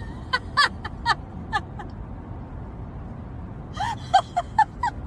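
Golden retrievers whining in short, falling yips, a quick run of about six, a pause, then another run near the end.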